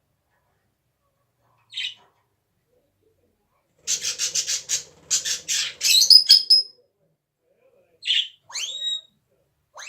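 Pet parrot calling: a short squawk, then a quick run of about ten short noisy coughs over two seconds, then several whistles sliding up and down in pitch.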